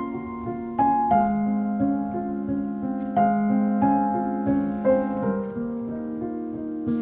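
Solo piano music, with notes struck and ringing over a held low note, played back through Markaudio 4-inch full-range drivers in small bass-reflex cabinets.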